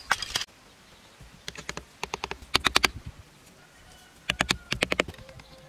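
Several quick runs of sharp, light clicks and taps: bamboo sticks knocking against each other as thin bamboo rods are fitted across a row of bamboo tubes.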